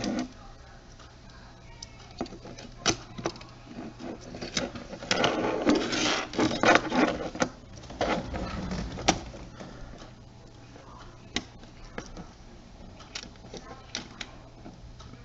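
Small clicks, taps and scraping of fingers and a tool working a camcorder's tiny flex-cable connector tab and plastic parts, with a denser stretch of handling noise about five to seven seconds in, over a steady low hum.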